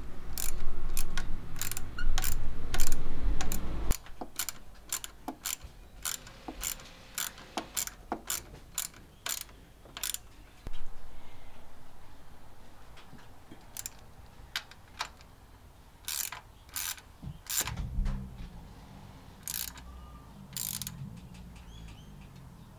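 Socket ratchet wrench clicking as the thermostat housing bolts are turned, about two to three clicks a second for the first ten seconds, then in short spells. A low rumble sits underneath during the first four seconds and again near the end.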